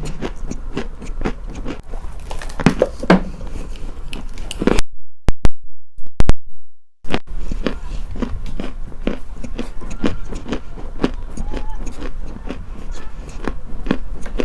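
Close-up crunching and chewing of a hard, brittle material, many quick crisp crunches in a row. The crunching stops for about two seconds around five seconds in, then resumes.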